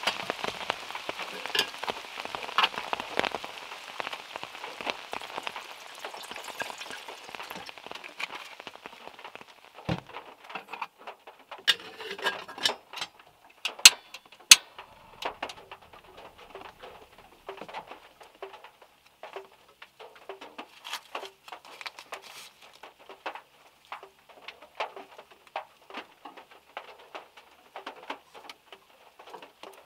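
Rain and drops falling from trees pattering on a small car. Dense and steady at first, it thins after several seconds into scattered single drops, with a few sharp louder ticks about halfway through.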